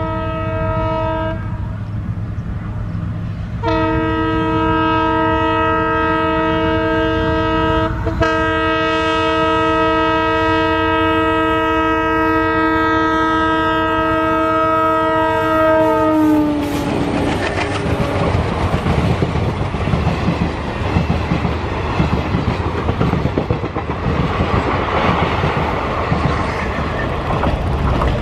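ALCo diesel locomotive sounding its multi-tone horn over the engine's low rumble: a short blast, then after about two seconds a long blast of roughly twelve seconds whose pitch drops as it cuts off. The locomotive and its coaches then pass close by, the engine running and the wheels clattering over the rail joints.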